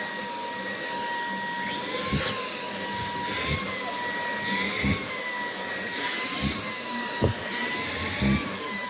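Vacuum cleaner running steadily while grooming a cat's fur, its whine wavering slightly in pitch, with about six soft thumps spread through.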